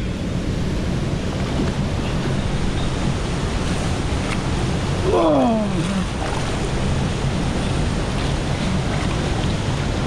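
Steady rush of flowing river water in a rocky gorge pool. About five seconds in, a man's voice calls out once, falling in pitch.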